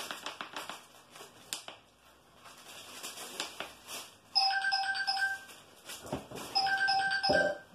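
A paper bag crinkling and rustling as a kitten paws at it. About four seconds in, a louder electronic ringtone starts, sounding in two bursts of quick, evenly spaced beeps a second or so apart.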